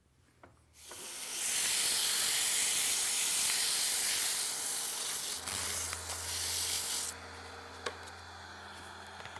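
Sandpaper held against a walnut handle spinning on a wood lathe: a steady hiss that builds over the first second or so and stops about seven seconds in, leaving the lathe running more quietly. A single click sounds near the end.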